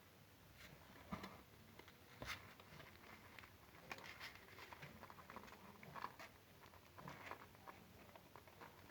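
Near silence with faint, irregular light clicks and taps scattered throughout.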